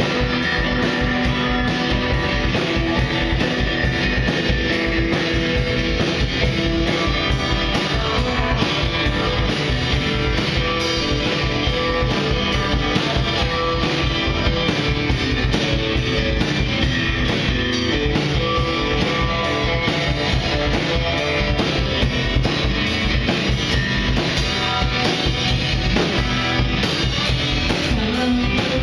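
A psychedelic surf-rock trio playing live: electric guitar and acoustic guitar over a drum kit with a steady beat.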